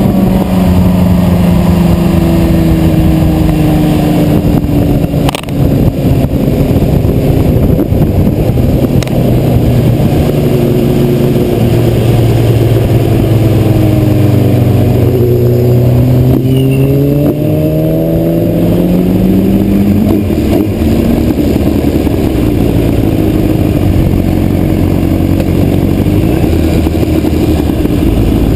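Sport motorcycle engine slowing down from high speed. The pitch falls steadily, climbs again for a few seconds about halfway through, then settles lower, with a steady rush of wind noise underneath.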